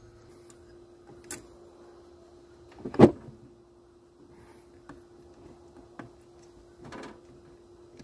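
Hands working a rubber coolant hose onto a water pump's inlet pipe: scattered clicks and handling knocks, the loudest a single sharp knock about three seconds in, over a faint steady hum.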